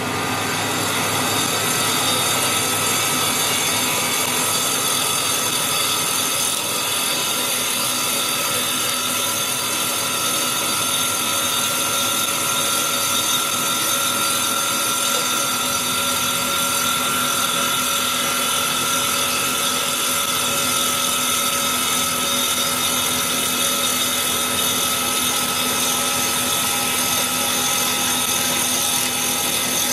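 CNC wood lathe's saw-blade cutter, spun at 3000 RPM, cutting a turning wooden baseball bat blank: a steady machine noise with a continuous high tone running through it.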